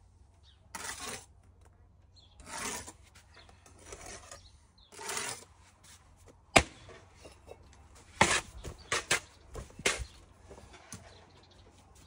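Brick trowels scraping mortar in three short strokes, then sharp taps of a steel trowel on bricks as they are bedded down in the mortar, one loud tap about halfway through and a quick run of taps a couple of seconds later.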